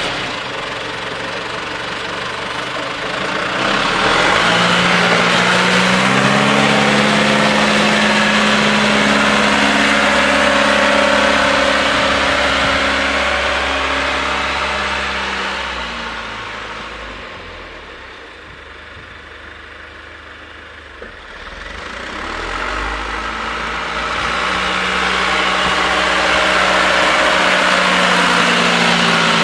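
John Deere 2850 tractor's four-cylinder turbo diesel engine running while it plows snow, its pitch rising and falling with the revs. The sound fades as the tractor moves off past the middle and grows loud again as it comes back close near the end.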